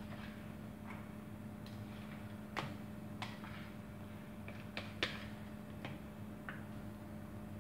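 A few light, sharp clicks and taps of a spatula and a ceramic bowl against a stainless steel tin as soft liver pâté mixture is scraped in, the loudest about five seconds in, over a steady low hum.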